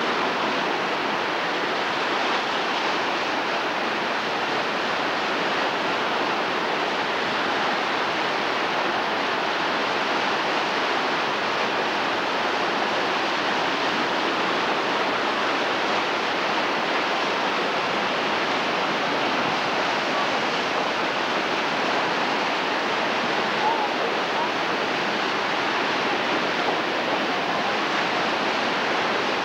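Steady rush of whitewater from a dam release of about 5,000 cubic feet per second, churning through rapids below the outlet.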